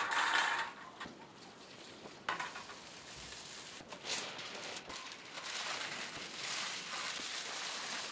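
Food sizzling in a pan, the hiss swelling and easing.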